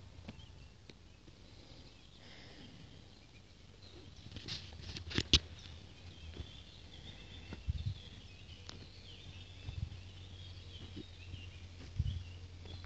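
Footsteps and phone handling noise while walking over dry, crumbly field soil, with a few low thuds and a cluster of sharp clicks about five seconds in, the loudest sound. Birds chirp faintly in the background.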